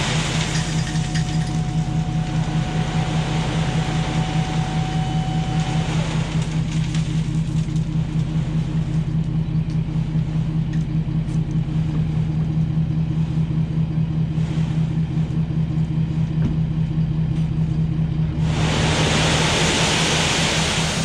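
Ford F250 pickup driving, its engine giving a steady low drone, with a hiss of tyres on the wet road that swells near the end.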